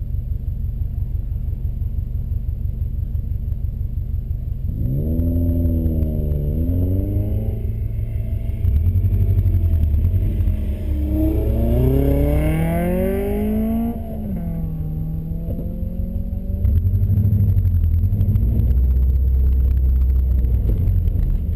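Subaru WRX engine heard from inside the cabin: a steady low rumble, with revs rising and falling twice in the first part.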